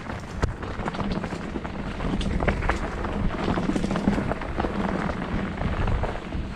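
Mountain bike riding fast down a dirt singletrack: tyres rolling over loose dirt and stones with many small clicks and rattles from the bike, over a steady low rumble.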